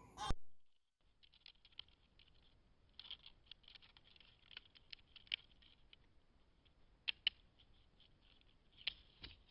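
Faint, irregular clicking and scratching, like claws gripping and scraping a wooden pole as an animal climbs it, with a few sharper clicks along the way. A brief louder sound comes at the very start.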